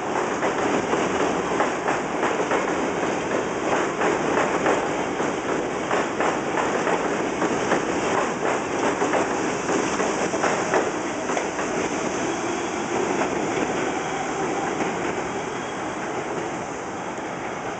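New York City Subway 1 train of R62A cars passing on the far track, its wheels clattering over the rail joints in a quick clickety-clack. The clatter eases after about eleven seconds and the running noise fades as the train draws away.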